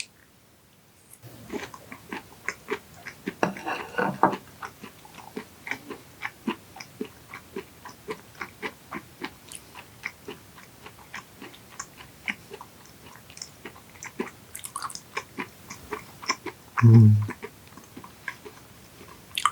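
Close-miked chewing of raw yellowtail sashimi dipped in sesame-oil sauce: a steady run of wet mouth clicks and smacks, a little louder about four seconds in. Near the end comes a short, loud, low hum.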